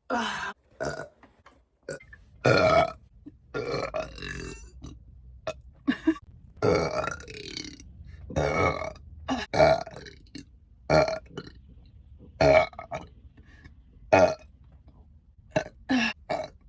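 A rapid string of human burps, roughly twenty of them, some short and clipped, a few long and drawn out, spliced one after another with abrupt cuts between them.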